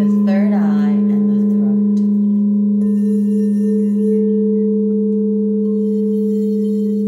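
Crystal alchemy singing bowls ringing with a loud, sustained low tone and a second tone about an octave above it, which pulses slightly partway through.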